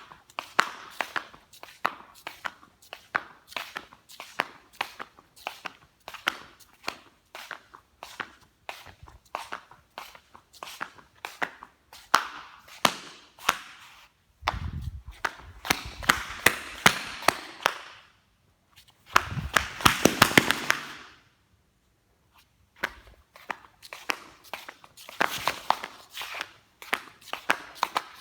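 Flip-flops flopping: repeated sharp rubber slaps, a few a second. Near the middle the slaps come as two denser stretches with a rustling, scuffing noise under them, each followed by a short pause.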